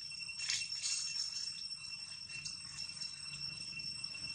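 Steady high-pitched drone of forest insects, with a few short rustling scratches in the first second or so.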